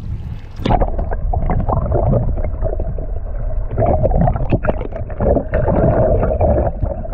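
Muffled underwater sound from a camera held just below the surface: water rushing and bubbling around the housing over a steady low rumble, growing louder as it plunges deeper about a second in.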